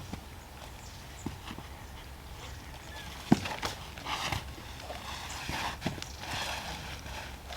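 A few irregular sharp knocks and cracks, the loudest about three seconds in, with short bursts of rustling between them.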